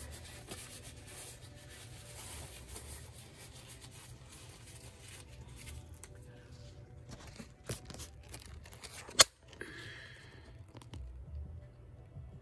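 Faint rustling and tearing of paper towel as paint is wiped off hands, with a single sharp click about nine seconds in.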